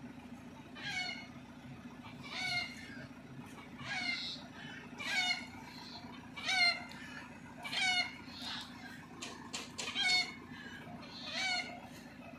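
An animal calling over and over, one short cry about every one and a half seconds, above a steady low hum, with a few sharp clicks near the end.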